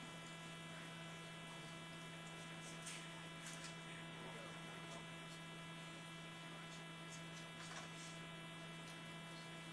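Faint, steady electrical hum with a buzzy stack of tones, and a few faint clicks.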